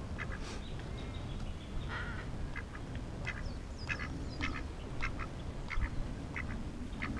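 Ducks quacking, a run of short calls every half second or so.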